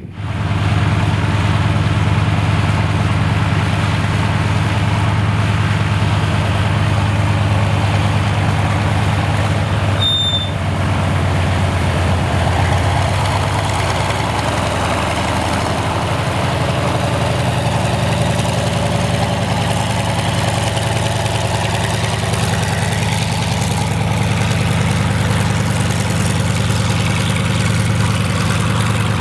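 Antonov An-2's nine-cylinder Shvetsov ASh-62 radial engine running steadily at low power, a deep even throb, as the biplane taxis. A brief high-pitched beep sounds about ten seconds in.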